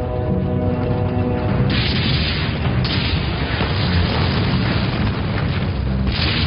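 Heavy booms of explosions over a low rumble and background music: one just under two seconds in, another about a second later, and a third near the end.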